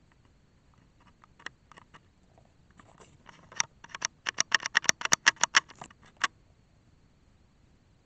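Close handling noise: a few scattered sharp clicks and crackles, then a quick loud run of them at about five a second that stops suddenly about six seconds in.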